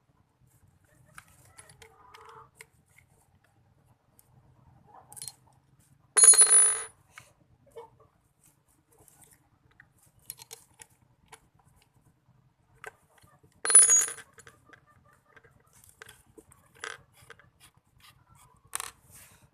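Small parts of a homemade mini drill being handled during disassembly: faint scattered clicks and taps, with two short, louder bursts of noise about six and fourteen seconds in.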